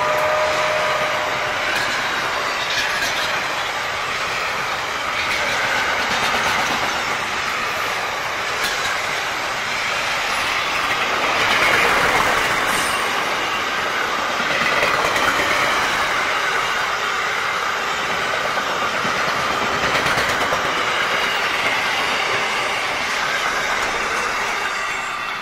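Loaded container wagons of an intermodal freight train rolling past: a steady rush of steel wheels on rail with clicks over the rail joints and a thin wheel squeal at times. The sound drops away near the end as the last wagons go by.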